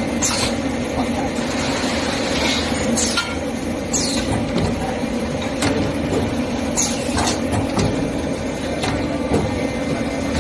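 Sandpaper moving-head die cutting machine running in a factory: a steady mechanical hum with sharp clicks every second or so.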